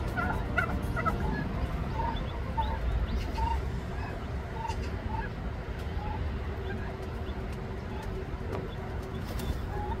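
A turkey hen and her newly hatched poults calling: a string of short, soft notes, roughly one a second, with a few higher notes in the first second.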